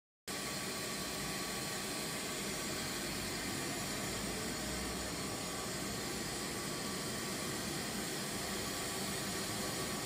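Steady rushing noise of a fire-test furnace running during a burn, starting abruptly just after the beginning.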